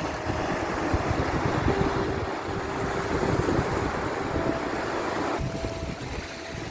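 Sea waves washing in a steady rush, with a few soft, long-held music notes over them.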